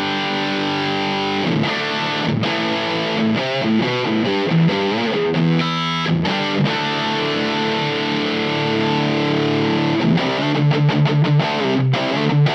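Distorted electric guitar played through an MXR FOD Drive overdrive pedal with its blend knob turned all the way to the right: chords, some held and ringing, then quick short chugged strums near the end.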